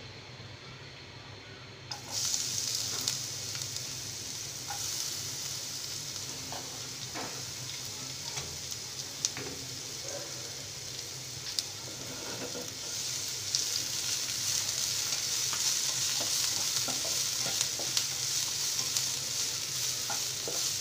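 Chopped onion dropped into hot oil in a non-stick frying pan about two seconds in sets off a sudden sizzle that keeps going as the onion fries. Light ticks of a spatula come through as the onion is stirred, and the sizzle gets louder about two-thirds of the way through.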